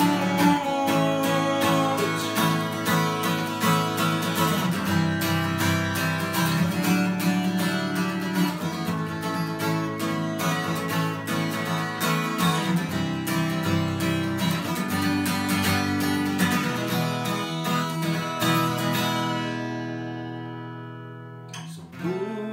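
Acoustic guitar strummed in a steady rhythm, chords with no singing. Near the end the strumming dies away, and a fresh strum rings out just before it ends.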